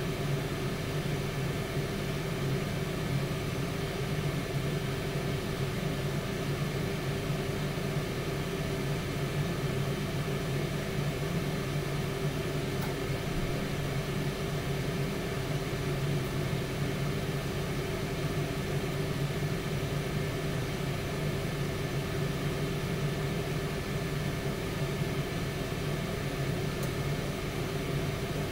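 Tower air fryer oven running mid-cook, its fan giving a steady, even hum.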